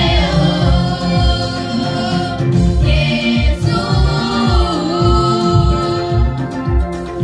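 Church choir singing a gospel song in parts, over an electronic keyboard with organ-like held chords and a steady low beat.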